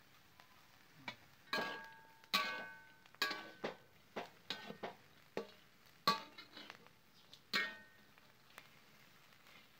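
Metal spatula knocking and scraping against a metal pan while turning fried crickets: about a dozen irregular clanks, each ringing briefly.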